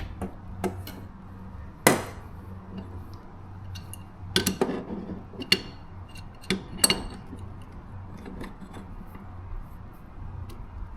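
Metal clinks and knocks of pliers and a Phillips screwdriver against a lawn mower's blade and blade bolt as the bolt is worked loose. There are a few sharp strikes, about two, four and a half, five and a half and seven seconds in.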